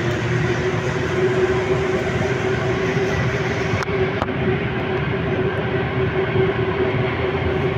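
Passenger train running, heard from inside the carriage: an even rolling rumble with a steady hum over it.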